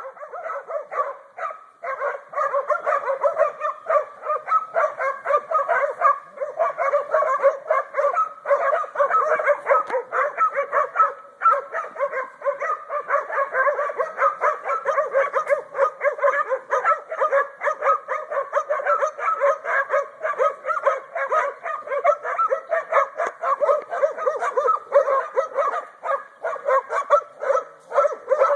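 Seven-month-old hog-dog pups baying a hog: rapid, overlapping barking and yipping that runs on without a break.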